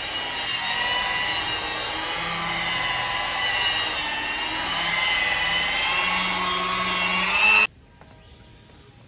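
Electric rotary polisher with a foam pad buffing compound on a car door, its motor giving a steady whine that wavers slightly in pitch as the pad works the paint. It stops abruptly near the end.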